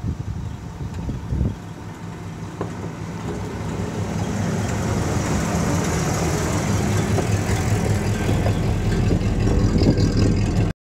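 1956 Pontiac Hy-Rail car rolling along railroad track, its engine running and growing steadily louder as it approaches and passes overhead. A few thumps come in the first couple of seconds, and the sound cuts off suddenly at the end.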